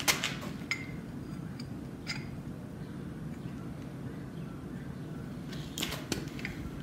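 Light metallic clicks and taps of a piece of flat bar being set and shifted against a flywheel's teeth. A few scattered taps come first, then a louder cluster about six seconds in, over a steady low background hum.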